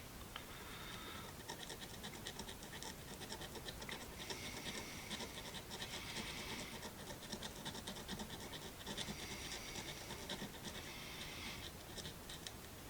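Paint marker tip scratching and dabbing across the engraved lettering of a metal flare nut wrench, in several bursts of quick strokes.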